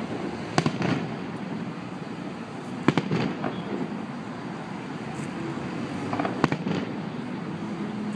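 Aerial firework shells bursting: sharp bangs in small clusters about half a second in, around three seconds and around six and a half seconds, over steady background noise.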